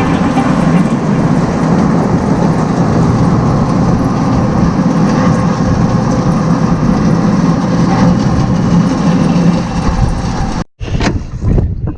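Automatic cattle-feeding machinery running: silo unloader, conveyors and belt feeder give a steady, loud mechanical rumble. It cuts off abruptly shortly before the end and is followed by a few knocks and wind on the microphone.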